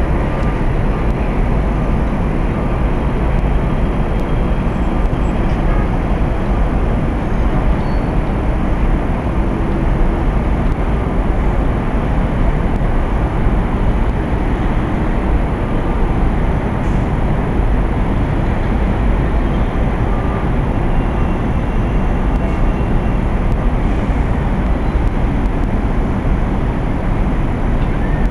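A steady, even rumble of noise with no distinct events, heaviest in the low end.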